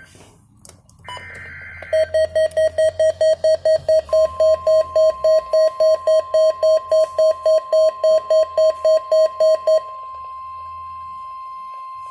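NOAA Weather Radio Required Weekly Test alert: a short raspy burst of SAME digital header data about a second in, then the weather radio receiver's alert beeping about four times a second for roughly eight seconds. The broadcast's steady warning alarm tone joins about four seconds in and holds after the beeping stops.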